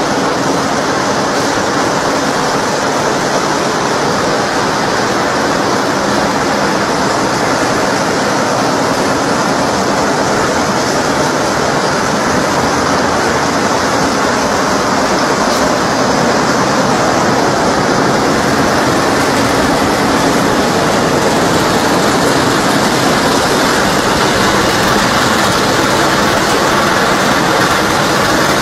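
Machinery of a nonwoven needle-punching line running: a loud, steady mechanical noise with a faint low hum, slightly louder from about halfway.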